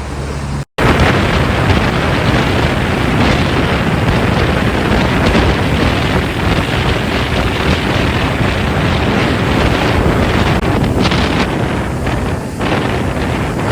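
Strong wind buffeting the microphone on a boat under way, with the rush of water and waves, loud and steady. A brief full dropout less than a second in.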